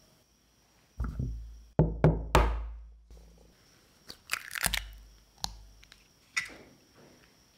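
An egg cracked open: four sharp knocks of the shell against a hard edge, each with a low thud, then a brief crackle of shell breaking apart about four seconds in, followed by two light clicks.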